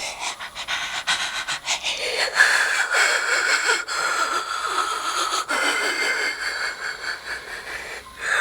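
Evil laugh sound effect: a person laughing in rapid, wheezy, breathy pulses. A fresh laugh starts just before the end.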